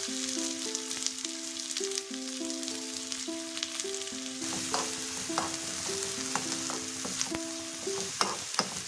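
Chopped onions sizzling and crackling in hot oil in a non-stick kadai, with a spatula stirring through them near the end. A simple background melody plays throughout.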